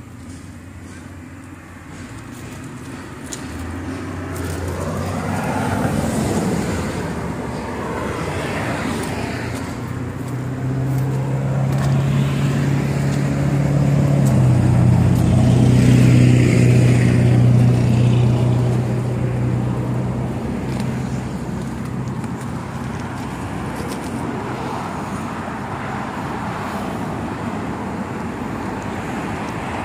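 Road traffic passing: cars go by, then a heavy engine drone swells to its loudest near the middle and fades back to a steady traffic hiss.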